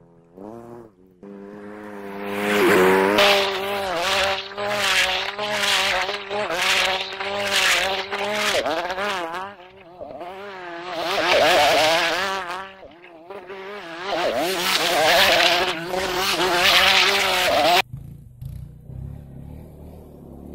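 Arctic Cat 450 XC ATV engine being revved hard again and again as it is ridden through deep snow, its pitch climbing and falling with each burst of throttle. Near the end the sound drops suddenly to a faint, low engine note.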